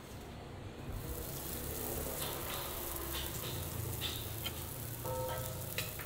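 Ring of roti canai dough frying on an oiled flat griddle, a steady sizzle starting about a second in.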